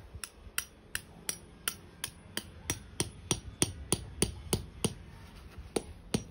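Claw hammer tapping a metal tent peg into grassy soil: a steady run of sharp strikes, about three a second, with a short pause about five seconds in.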